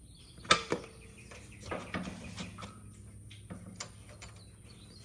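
Scattered sharp clicks and clanks of metal hardware being handled on a minibike's motor mount and chain adjuster: one sharp click about half a second in, a short clatter around two seconds, and a few lighter ticks later.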